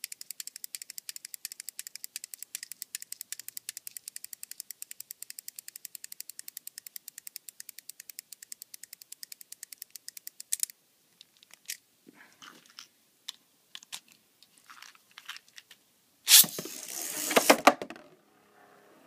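Engine gear of a Dragoon Galaxy Beyblade being wound with its winder: rapid, even ratchet clicking that stops about ten seconds in, the wound engine gear working as it should. A few light clicks follow, then a loud clattering burst near the end as the top is launched into the plastic stadium and spins.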